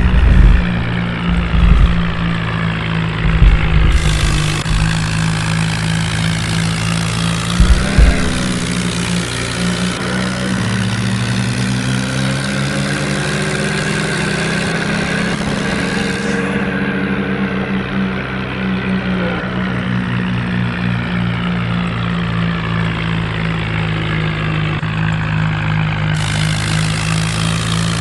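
A heavy vehicle's diesel engine runs steadily, with a few strong low thumps in the first eight seconds and a slow rise and fall in pitch in the middle.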